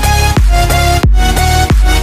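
Electronic music with a deep bass beat about every two-thirds of a second under sustained synth tones.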